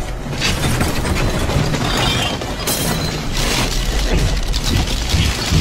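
Action-film sound effects: a heavy, steady low rumble with repeated cracking and crashing noises.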